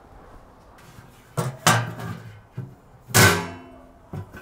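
Sheet-steel lid being set down and settled onto a grinder's coolant sump tank: a few sharp metal clanks, the loudest about three seconds in.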